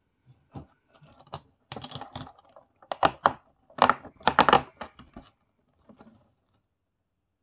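A cardboard advent-calendar door being torn open and a plastic bag of LEGO bricks handled: an irregular run of tearing, rustling and light clicks, louder around the middle, that stops about six seconds in.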